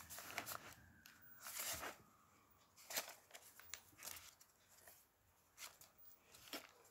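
Faint rustling and brushing of paper as the pages of a handmade junk journal are turned and smoothed flat by hand, in several short soft swishes about a second apart.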